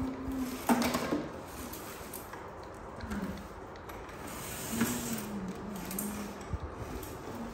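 A plastic ride-on toy car clicking and rattling as it is handled, with a sharp click just under a second in. A low hum-like tone comes and goes.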